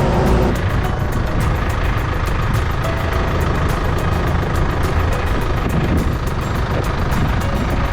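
Old excavator's diesel engine running steadily, with a fast, even ticking over the low drone. A higher steady tone cuts off about half a second in.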